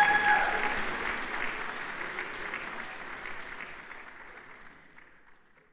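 Theatre audience applauding, fading out steadily to silence, with a short held tone ending about half a second in.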